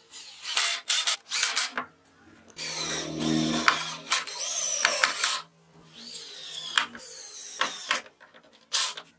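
Cordless drill-driver driving screws into metal and plywood, run in several short bursts with one longer run in the middle; its motor whine slides down in pitch during the runs.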